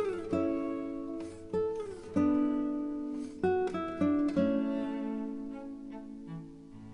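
Background music: plucked acoustic guitar notes ringing out in a slow melody.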